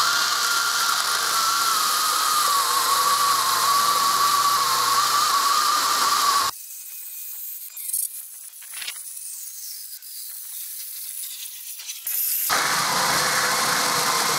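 Battery-powered one-handed mini chainsaw cutting into a very dry cherry log wider than its bar, the electric motor and chain whining steadily under heavy load, the pitch sagging slightly as it is pushed. The saw sound drops away abruptly about six and a half seconds in, leaving only faint noises, and comes back at the same loud whine about twelve and a half seconds in.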